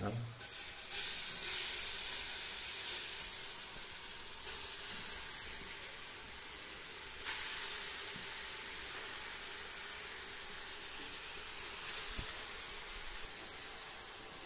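Steady sizzling hiss from a hot steel pot as grated carrots are tipped and scraped into it from a steel plate for carrot halwa, slowly dying down.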